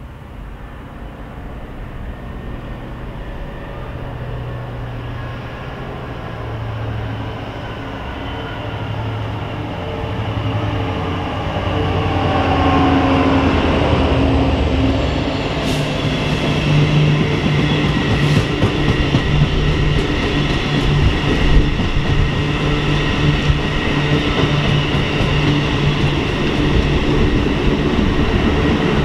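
A Class 66 diesel locomotive with an EMD two-stroke V12 engine approaches, its engine note growing louder and then dropping in pitch as it passes about 13 seconds in. Then the heavy ballast hoppers and track machines of a ballast-cleaning train roll by in a steady rumble, with a few sharp wheel clicks.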